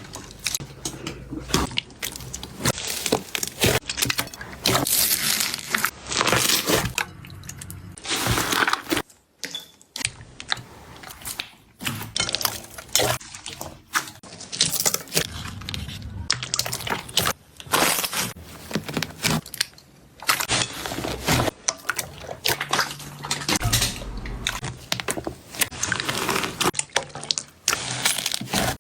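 Slime being squeezed and worked by hand, making a steady run of irregular crackling and popping clicks, with short pauses a little over nine seconds in and again around twenty seconds.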